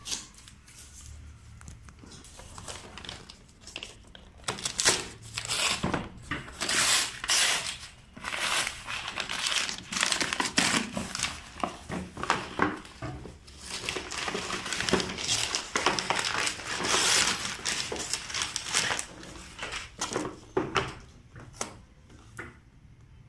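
Gift-wrapping paper being torn and crumpled by hand as it is pulled off a box: a run of irregular rips and crinkling rustles, faint for the first few seconds, then loud and busy, and dying down near the end.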